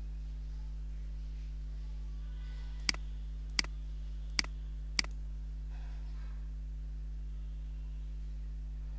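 Four sharp computer mouse clicks, a little under a second apart, over a steady low hum.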